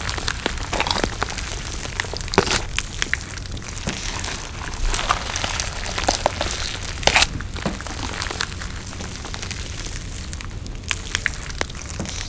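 Close-miked eating: chewing and crunching food, with many sharp clicks and crackles, the loudest a little over two seconds in and about seven seconds in, over a steady low hum.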